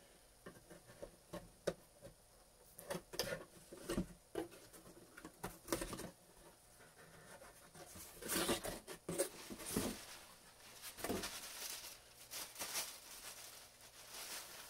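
A mailed package being opened and its packaging handled: irregular rustling, crinkling and clicking, with a busier, louder stretch about eight to ten seconds in.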